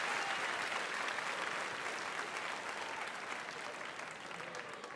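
Large audience applauding, the clapping fading away gradually.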